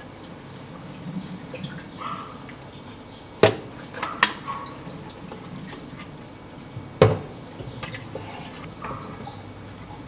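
Water dripping from a DeLonghi Dedica's steam wand into a stainless steel milk jug holding liquid: scattered drops, three of them loud sharp plinks with a short ring, and fainter drips between.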